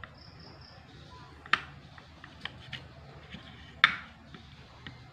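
Sharp plastic clicks of wireless earbuds being handled and fitted into their charging case: two loud clicks about two seconds apart, with a few lighter ticks between and after.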